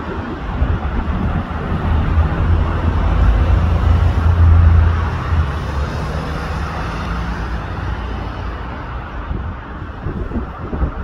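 Street traffic: a motor vehicle's low engine rumble that swells to its loudest about four to five seconds in and then fades, over steady road noise.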